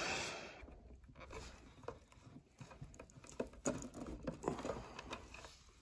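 Faint scattered clicks and rustling of a combination wire stripper/crimper being handled and squeezed onto a blue insulated butt-splice connector, crimping the splice in a lamp's power cord.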